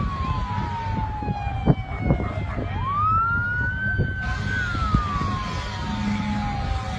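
Fire engine siren wailing: a long, slowly falling tone that swoops back up a little under three seconds in, holds briefly, and falls again. Underneath is a steady low rumble, with a couple of short knocks around two seconds in.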